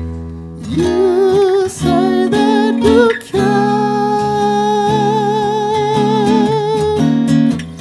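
A man singing over strummed guitar chords: a short rising phrase, then one long held note with a wide vibrato from about three seconds in until near the end.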